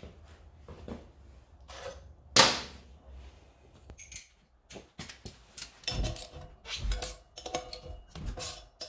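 Metal clinks and knocks of hand tools and bike parts, with one sharp clack about two and a half seconds in. In the second half, a socket wrench works on the rear sprocket bolts of a motorcycle wheel in a run of frequent clicks and knocks.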